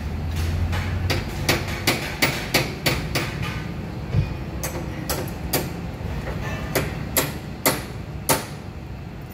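Hammering: sharp knocks in evenly spaced runs of about three a second, with pauses between the runs.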